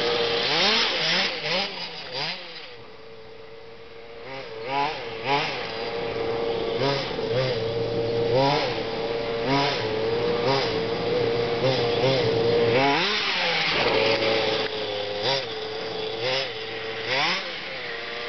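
Small petrol two-stroke engine of an FG 4x4 radio-controlled monster truck, fitted with a tuned exhaust pipe, running at a steady high pitch with many short revs up and back down as the throttle is blipped. It goes quieter for a second or so about three seconds in.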